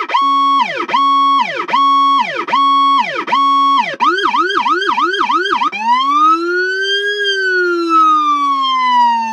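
Powercall Jack Hammer siren cycling through its tones. First a held tone repeats, each ending in a quick falling drop, a bit more than once a second. About four seconds in it switches to fast arching pulses, about three a second, then to a slow wail that rises for about a second and a half and falls slowly.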